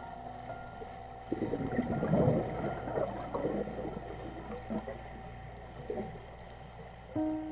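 Scuba divers' exhaled bubbles gurgling and crackling underwater. A dense burst of bubbling starts about a second in and fades over a few seconds, and another sudden burst comes near the end.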